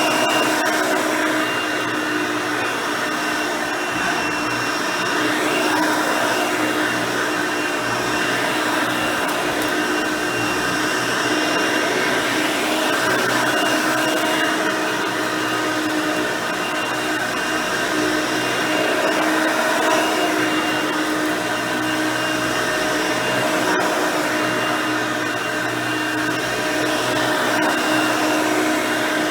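Hoover Elite 350 upright vacuum cleaner running steadily, its 5 amp motor and nine-blade fan giving a constant whine over the rush of air, with the level rising and falling slightly as it cleans.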